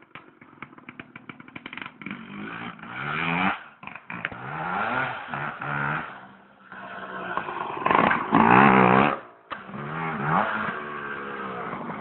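Small motorbike engine revving up and down several times, its pitch rising and falling, loudest about eight to nine seconds in. A rapid run of ticks comes in the first couple of seconds.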